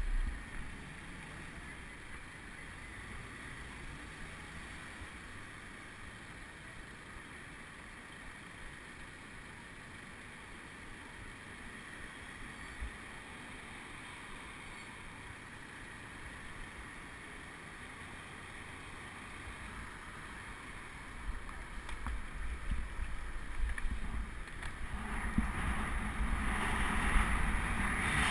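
Steady low street traffic noise heard through a GoPro while the bike stands at a red light. Over the last several seconds the noise grows louder and rougher as wind rushes over the microphone with the bike setting off.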